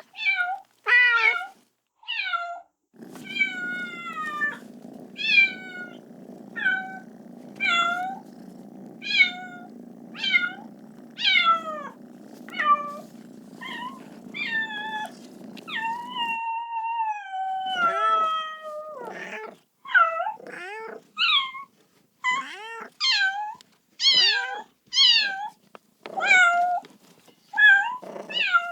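Kitten meowing over and over, calling for its mother: short high cries about once a second, each dropping in pitch, with one longer, drawn-out meow sliding down about two-thirds of the way through. A low steady hum sits under the cries for the first half and cuts off suddenly.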